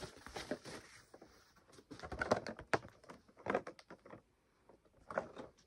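A white plastic mailing bag rustling and crackling in several short bursts as it is opened and a boxed vinyl figure is drawn out of it.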